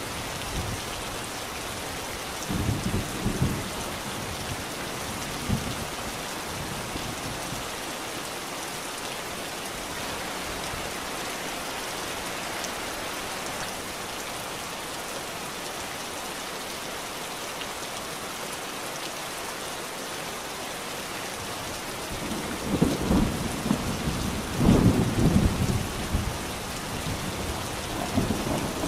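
Steady rain falling, with thunder rumbling: a short roll a few seconds in and a longer, louder one about three-quarters of the way through.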